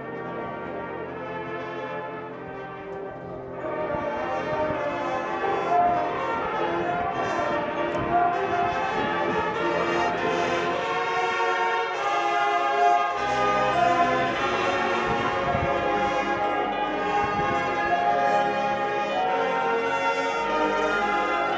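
High school marching band playing, its brass holding sustained chords. The full band swells louder about three and a half seconds in, and low notes join around thirteen seconds in.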